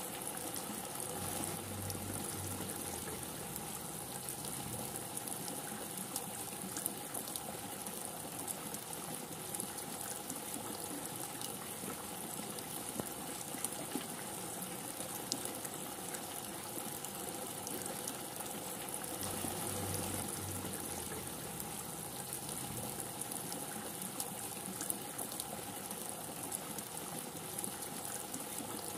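Steady rain falling, a continuous hiss with many scattered drop ticks. A faint low rumble comes through twice.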